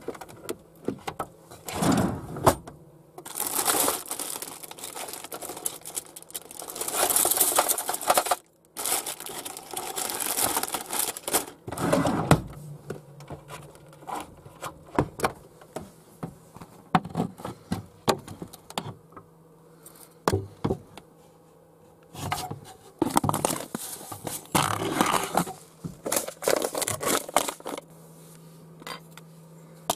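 Breakfast things being taken out of small cupboards: plastic bowls and a plastic spoon clattering, cupboard doors and drawers knocking, and several bursts of rustling and crinkling from handling, mixed with many small irregular clicks.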